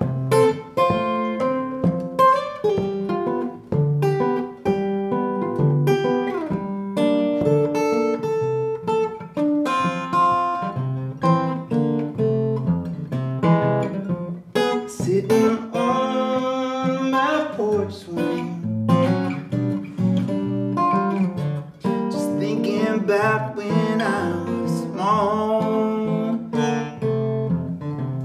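Acoustic guitar fingerpicked solo, a run of separate plucked notes and chords with a few sliding notes.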